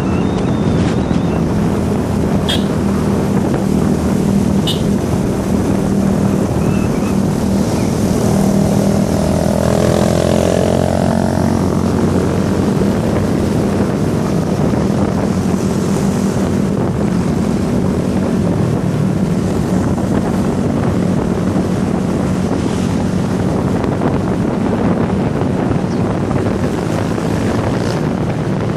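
A vehicle engine running steadily under heavy wind noise on the microphone, with a pitched sound sweeping past about eight to twelve seconds in.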